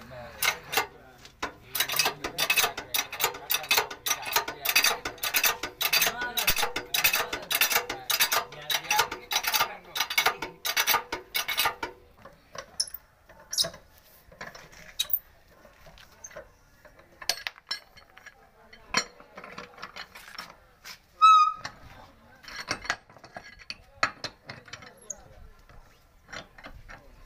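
Hydraulic bottle jack pumped by its handle: a steady rhythm of metallic clicks, about two to three a second, as it lifts a truck axle. It stops after about twelve seconds, giving way to scattered metal clinks and taps of a wheel spanner on the wheel nuts of a 9.00-16 truck tyre, with one short, loud squeak.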